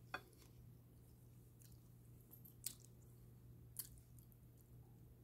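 Faint chewing of food, with a few small mouth clicks and smacks; otherwise near silence.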